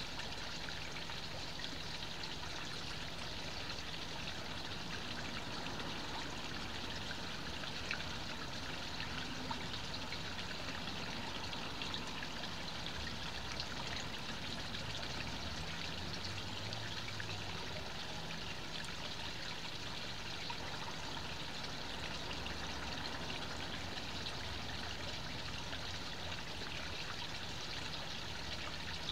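Water from a small garden pond waterfall pouring and trickling steadily into the pond.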